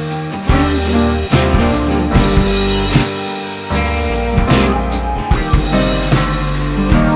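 Background music: an upbeat rock-style track with drum kit, bass and guitar playing a steady beat.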